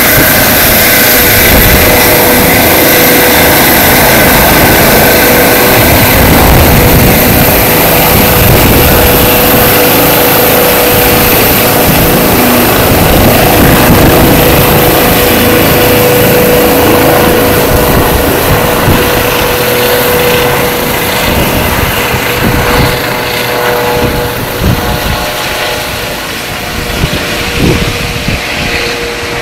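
Eurocopter EC135 P2 twin-turbine helicopter lifting off and climbing away: loud rotor and turbine noise with a steady whine, fading over the last ten seconds or so as it flies off.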